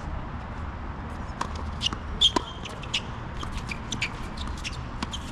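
Tennis shoes scuffing and squeaking on the court, with a brief squeak and a sharp knock a little past two seconds in.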